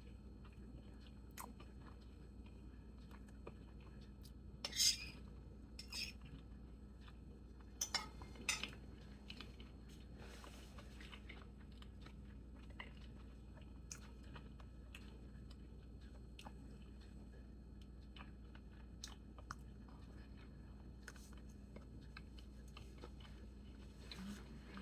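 Quiet chewing with occasional clicks of cutlery against a plate, the loudest clinks about five and eight seconds in, over a steady low hum.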